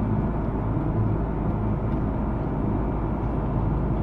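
Steady low roar inside the cabin of an Airbus A330-300 in flight: its Rolls-Royce Trent 700 turbofans and the airflow, heard from a window seat behind the wing.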